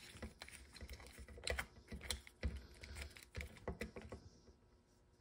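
Faint, irregular clicks and taps of a McFarlane DC Multiverse Gorilla Grodd plastic action figure being handled, thinning out over the last second.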